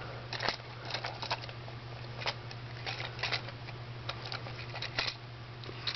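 Small plastic clicks and rustles, about ten scattered ticks, as the jointed parts of a plastic Transformers action figure are handled and folded out during its transformation. A steady low hum runs underneath.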